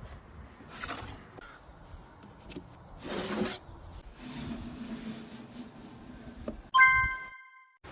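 Hand work on wood: rubbing and scraping with a few knocks, then near the end a sharp strike that rings with a clear tone before the sound cuts off abruptly.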